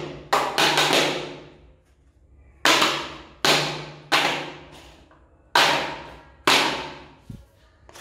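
Black plastic filter frame from an Electrolux vacuum cleaner knocked against a ceramic tile floor about seven times at uneven intervals, each a sharp knock with a short echo, to shake out caked fine dust.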